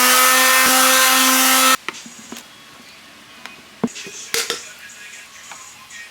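A power drill running fast, its pitch rising as it spins up and then holding steady, until it cuts off suddenly under two seconds in; a few light knocks and clicks follow.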